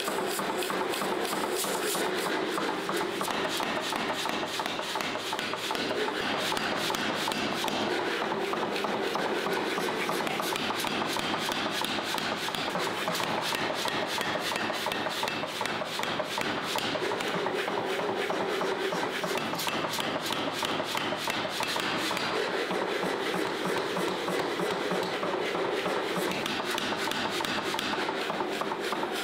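Continuous rapid scraping strokes, a steady rasping without pause.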